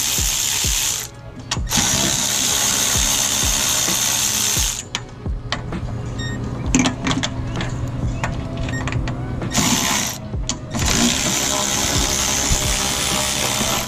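Milwaukee M12 cordless electric ratchet running in long bursts as it spins 13 mm strut-mount nuts off their studs, with a quieter stretch of clicks in the middle between nuts.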